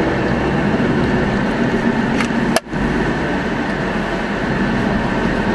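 Steady car engine and road noise heard from inside the cabin as the car creeps forward in a queue. About two and a half seconds in there is a sharp click, and the sound cuts out for a split second.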